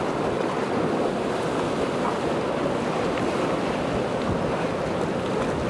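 Large ocean waves breaking, a steady rushing surf noise, with wind buffeting the microphone.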